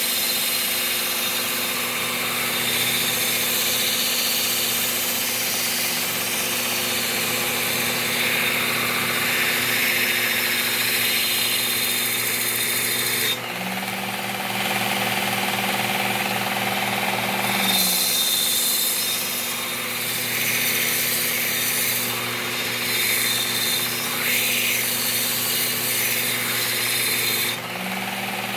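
Work Sharp Ken Onion Elite belt sharpener running steadily while a lawn mower blade's edge is ground on its abrasive belt: a motor whir with a grinding hiss. Twice, near the middle and at the end, the grinding lets up and a steadier low hum of the running belt comes through.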